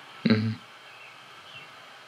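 A man's voice utters one short syllable, then a low steady room hiss.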